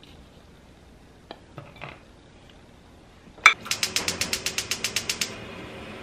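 Gas stove burner being lit: one loud click as the knob is turned, then the igniter ticking rapidly, about ten clicks a second for a second and a half, before it stops. Earlier, a few light knocks of a plastic knife cutting sausages on a wooden board.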